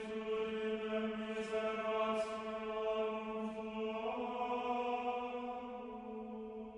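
Slow, sustained chant, with voices holding a drone-like note that steps to a new pitch about four seconds in, and soft hissing consonants now and then. It fades gradually near the end.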